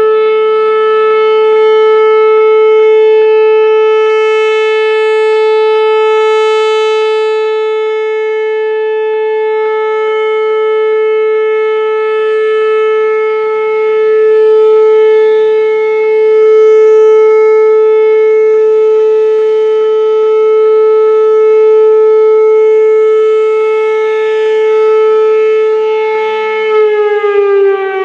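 Whelen Vortex R4 electronic outdoor warning siren sounding a loud, steady single tone that swells and fades as its rotating head sweeps past, then glides down in pitch near the end as it winds down.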